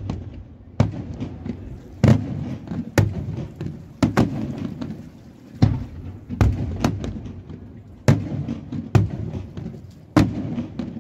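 Aerial fireworks shells from a Pirotecnica F.lli Pannella display bursting high overhead in a steady barrage of about ten loud bangs, roughly one a second. Each bang is followed by a low rumbling echo.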